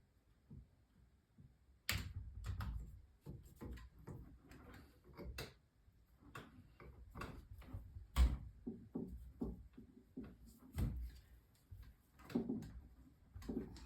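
Irregular clicks and knocks, like things being handled and set down, with the sharpest about two seconds in and another about eight seconds in.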